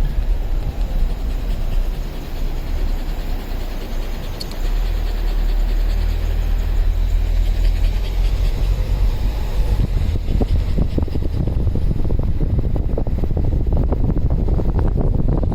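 Road noise of a moving car: a steady low rumble with a rushing noise over it, growing louder about four and a half seconds in.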